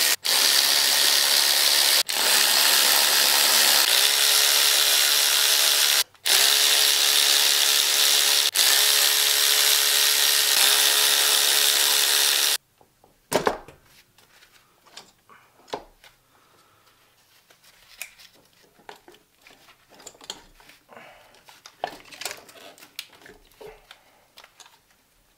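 Handheld power tool run in long bursts while unbolting parts from a Subaru WRX engine, with three brief stops. It cuts off suddenly about halfway through, followed by faint scattered clicks of tools and parts and one sharper knock.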